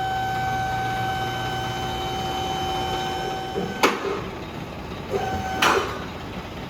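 Vehicle lift's electric pump motor whining steadily, cutting off about four seconds in with a sharp clunk. A brief second run of the motor ends in another clunk.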